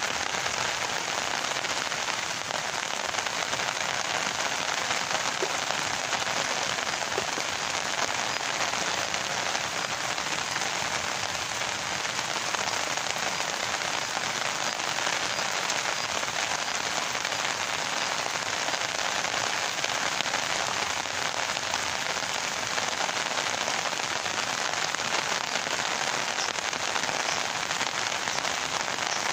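Steady rain falling: an even hiss of drops that holds at one level.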